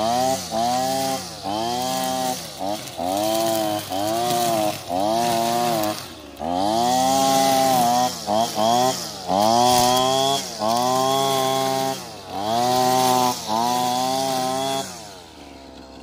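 Husqvarna 225L string trimmer's two-stroke engine revving up and easing off again and again as the line head cuts weeds, then dropping back to idle near the end. The engine is running on a newly replaced carburetor.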